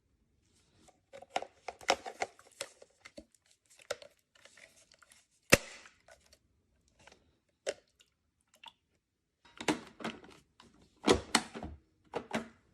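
Handling noise: scattered clicks, knocks and rustling as objects are moved about by hand, with one sharp click about five and a half seconds in and a run of knocks near the end.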